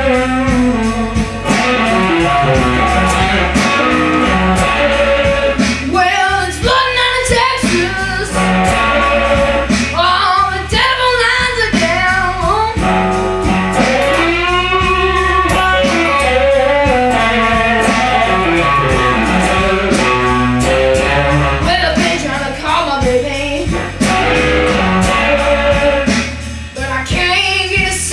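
Slow electric blues with electric guitar lead lines full of bent notes, over a steady low bass line.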